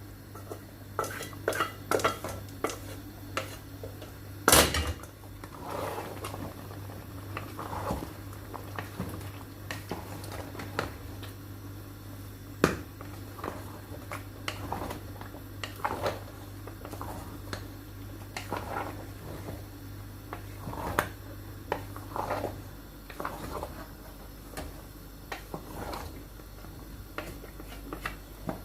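A cooking spoon and pot clinking, knocking and scraping in irregular strokes as boiled meat and stock are added to a pot of frying okra soup, with one loud knock about four and a half seconds in. A low steady hum runs underneath and stops a little after twenty seconds in.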